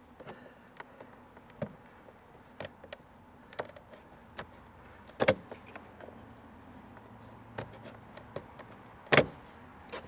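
Plastic clicks and snaps as a nylon trim removal tool pries the snap-clipped plastic trim bezel around an interior door handle off the door panel, with two louder snaps about five and nine seconds in.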